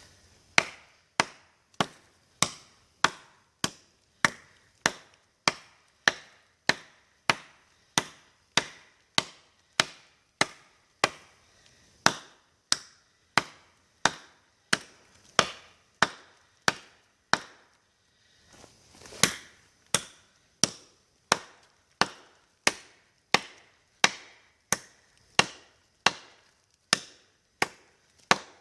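Condor Lochnessmuk, a big Nessmuk-style knife with a 10-inch 1075 carbon-steel blade, chopping into wood: sharp, even strikes about one and a half a second, with one short break about two-thirds of the way through.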